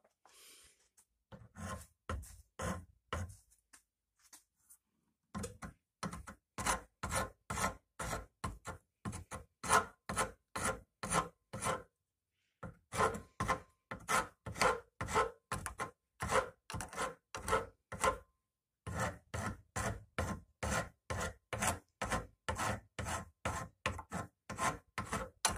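Hand file rasping across the edge of a wooden hammer handle in repeated strokes, about two a second, in runs broken by a few short pauses. The strokes are cutting a taper on the handle's edge.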